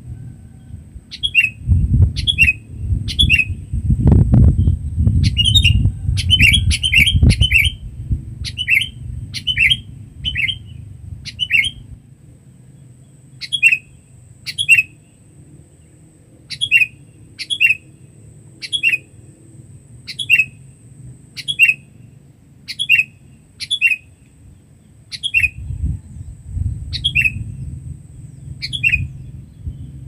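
Sooty-headed bulbul calling loudly: short notes that drop in pitch, repeated about once a second, with a rapid flurry of overlapping calls a few seconds in. A low rumble comes and goes underneath, and a faint steady high whine runs throughout.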